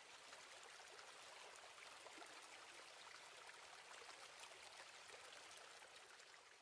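Near silence, with a faint steady trickle of water and scattered tiny drips.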